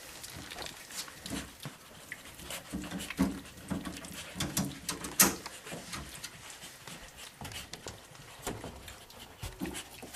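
Young warthogs grunting softly as they move about inside a refrigerator, with many sharp taps and knocks, the loudest a little past halfway.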